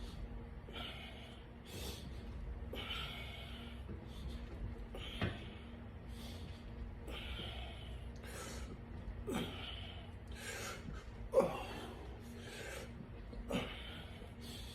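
A person breathing hard and rhythmically with effort, one forceful breath about every second, as during exercise repetitions. A few soft thumps fall between the breaths, and a faint steady hum runs underneath.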